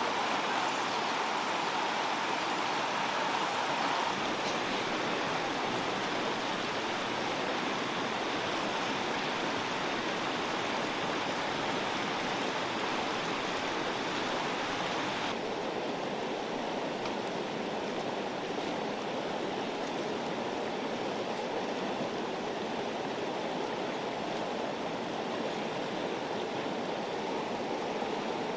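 Steady rushing of a fast-flowing river, its tone shifting slightly a few seconds in and again about halfway.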